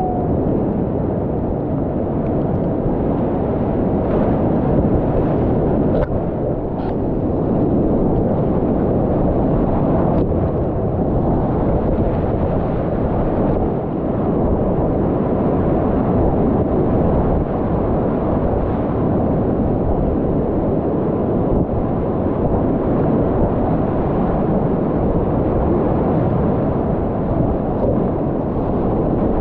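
Whitewater rapids of a river in high flow (about 1500 to 2000 cfs) rushing steadily and loudly around a kayak, the sound heavy and dull with little hiss. A few faint knocks come through about six and ten seconds in.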